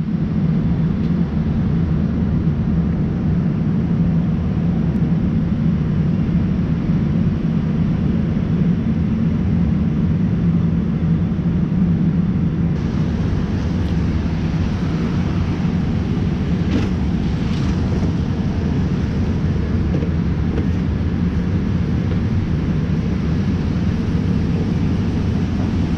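Steady low rumble of city street ambience, an even hum of distant traffic and urban noise.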